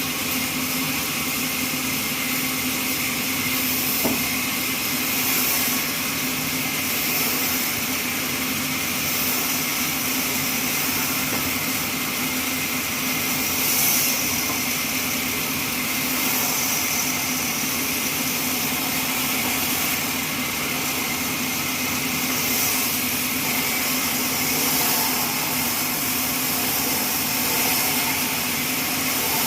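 Horizontal trolley bandsaw mill running steadily: a constant motor hum under a loud, even high hiss.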